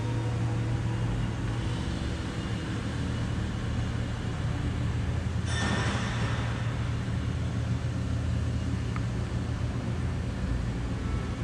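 A forklift's single-cylinder diesel engine idling steadily with a low, even hum. A brief hiss comes about halfway through.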